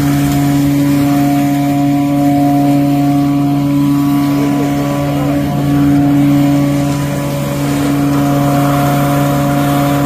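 Vac-Tron vacuum excavator running steadily while its hose sucks water and mud out of a catch basin: a loud, constant-pitched drone.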